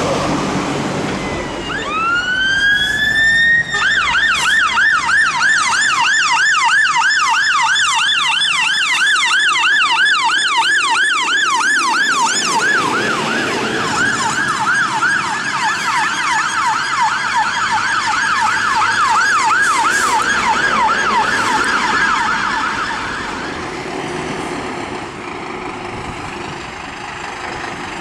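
A fire engine's electronic siren winds up with a rising tone, then switches to a fast yelp that sweeps up and down about three times a second. The yelp goes on for some twenty seconds and dies away near the end, leaving quieter engine and road noise.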